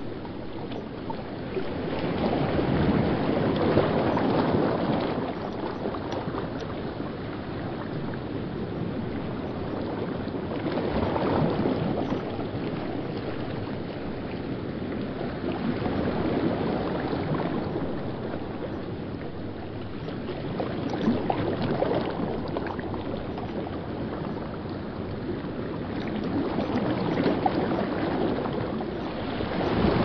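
River whitewater rushing over rocks, a steady churning that swells louder and eases back every five seconds or so.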